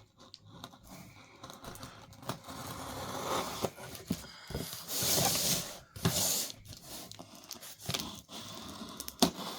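A package being cut open with a knife: scraping and tearing of the packaging, with two louder rips about five and six seconds in.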